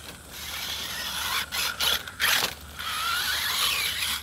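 Axial Ryft RC rock bouncer's electric motor and geared drivetrain whining under throttle as it drives on loose dirt, with several rough bursts in the middle and a whine that rises and falls in pitch near the end.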